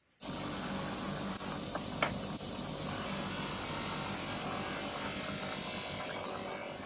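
Clarke 6-inch bench buffer/polisher motor running steadily while a metal hinge is held against its spinning wheel, a brass wire wheel and then a polishing mop, with one sharp click about two seconds in.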